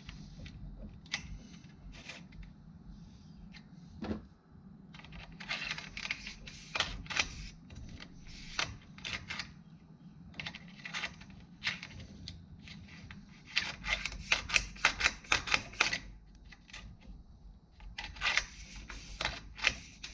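Plastic mast slugs clicking and rattling as they are pushed by hand through a 3D-printed mast gate in the mast's sail track. The clicks come in several quick runs, the busiest about two thirds of the way through.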